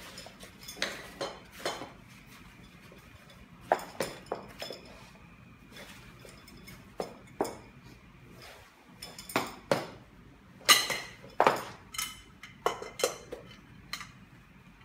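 Irregular clicks, clinks and knocks of a bed rail's white tubes and plastic fittings being handled and fitted into the rail, the loudest knocks coming in the last third.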